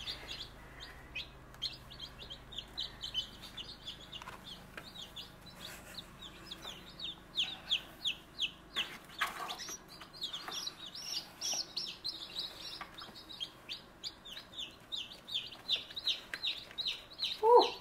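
Newly hatched chicks peeping: many short, high, falling peeps, several a second, thinning out briefly about four to seven seconds in. A couple of brief knocks come about six and nine seconds in.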